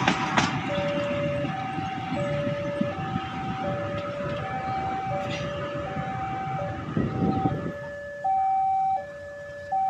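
Two-tone electronic level-crossing warning alarm, switching between a lower and a higher tone about every three-quarters of a second. Under it the wheels of passing passenger coaches rumble until about three-quarters of the way through, then cut off, leaving the alarm alone, louder and more clipped.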